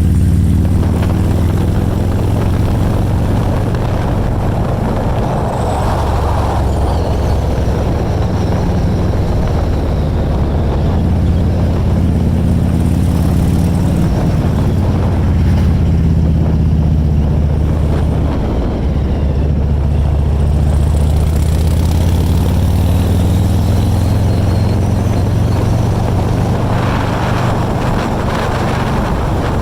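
Harley-Davidson V-twin motorcycle engine and exhaust running under way at a steady cruise, its low note rising and falling gently with the throttle, with rushing air noise over it.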